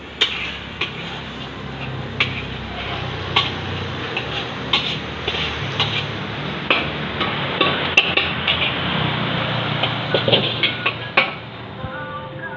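Metal kitchenware clattering: utensils knocking and scraping on a wok and aluminium pots, with many sharp clanks over a steady hiss. The hiss and clatter stop about eleven seconds in, and music starts near the end.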